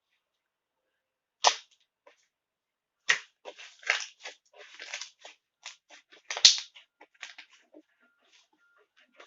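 Slime being pressed and stretched by hand, crackling with an irregular run of sharp clicks and pops. The loudest snaps come about a second and a half in and again about six and a half seconds in.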